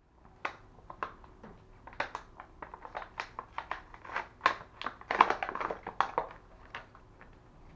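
Plastic blister packaging of a toy being pulled off its card and handled, a run of sharp crinkles and snaps that is busiest about five to six seconds in, then dies away.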